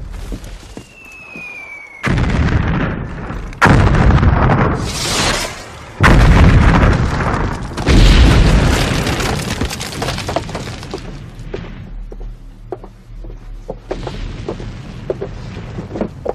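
Artillery shells bursting in a film battle scene: a descending whistle, then four heavy explosions about two seconds apart, each trailing off in a long rumble. Quieter, scattered sound follows after about twelve seconds.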